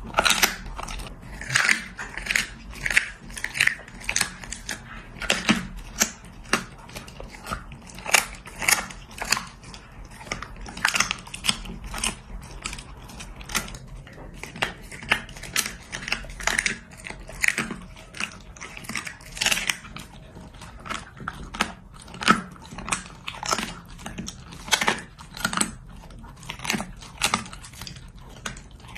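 A dog chewing and crunching food held to its mouth by hand: irregular sharp crunches, about one or two a second, with wetter chewing between.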